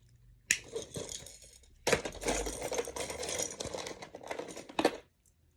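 Small objects being handled: a sharp knock, then a few seconds of rustling and clattering, ending with a sharp click.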